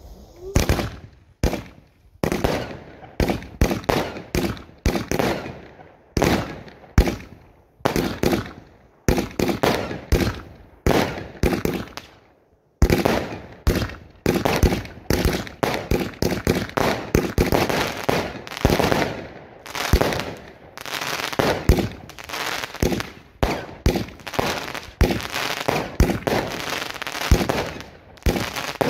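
A fireworks display being fired, heard close up at the firing position: a fast, irregular run of sharp bangs with crackle. About halfway through there is a brief pause, after which the shots come thicker and faster.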